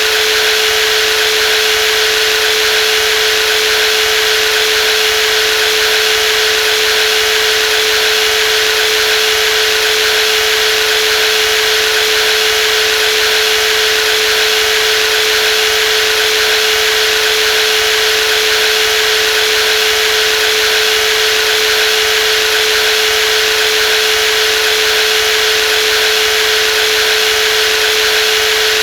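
Brushless jigsaw running steadily at constant speed: an even, unchanging hum with a single steady tone and a bright hiss above it.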